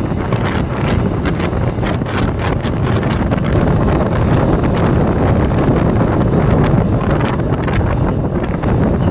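Steady wind rushing over the microphone of a camera on a moving motorcycle, with the bike and road noise beneath it.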